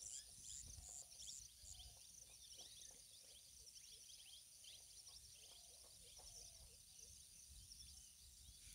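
Near silence: a faint outdoor background of small bird chirps and insect chirping.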